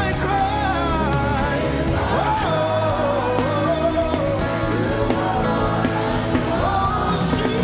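Live gospel worship music: a melodic singing voice with wavering pitch carried over sustained backing instruments.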